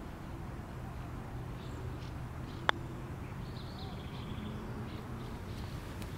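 A single sharp click of a golf club striking a golf ball about two and a half seconds in, over a steady low outdoor background with faint bird chirps.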